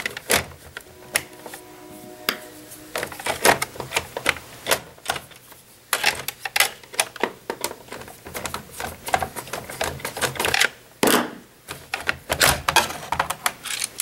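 Irregular plastic clicking, knocking and rattling as a Jura ENA 4 espresso machine's brew group is worked loose by hand and slid out of its plastic housing.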